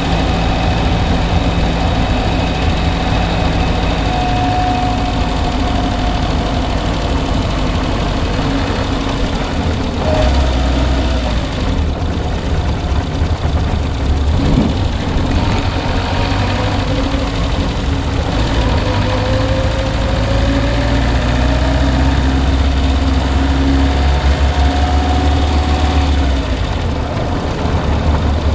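Car engine idling steadily, with the knocking from the engine that the owner is recording. The low idle note shifts about ten seconds in and again near the end.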